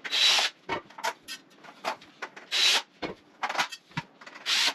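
Cordless drill running in three short bursts as it backs screws out of a metal light fixture's mounting plate, with sharp clicks and clinks of the metal parts between the bursts.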